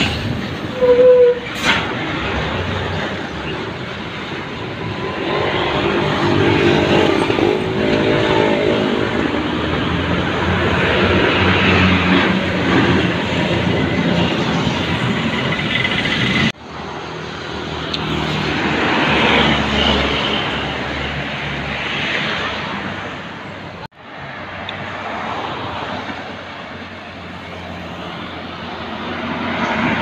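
Large tour buses and other road traffic passing close by, engine and tyre noise swelling and fading with each pass. The sound breaks off abruptly twice where one clip cuts to the next.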